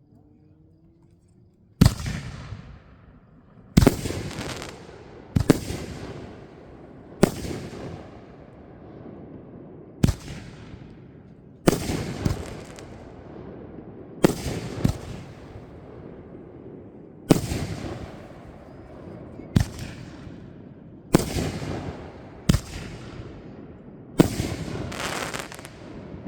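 Fireworks going off in a series of about fifteen sharp bangs, one every second or two, each fading out over a second or so.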